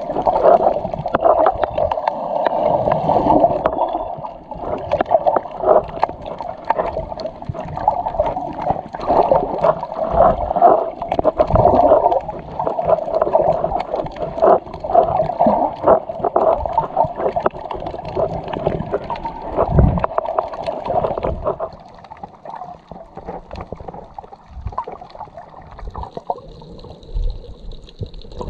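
Muffled underwater water noise from a camera held below the surface: continuous gurgling and sloshing with many small bubbling clicks, dropping to a quieter level for the last quarter.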